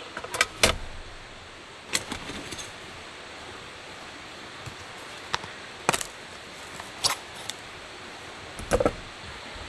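Scattered sharp metallic clicks and clatters of camping gear being handled and set down, such as a folding table, over the steady rush of a nearby stream.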